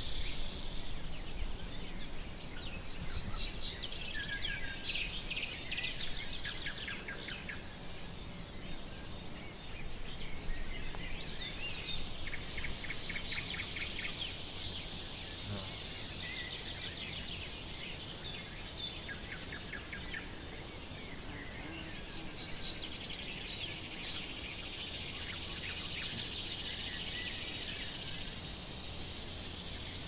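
Summer countryside soundscape: a high insect chirp repeating steadily a few times a second over a constant insect hiss, with birds singing short trills on and off.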